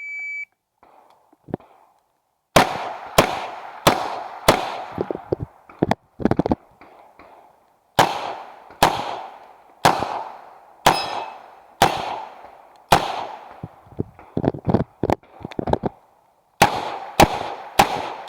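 A shot timer's short beep, then a 9mm Uzi Pro pistol firing single shots about a second apart, in strings broken by short pauses, about fifteen shots in all. Fainter knocks sound between the shots.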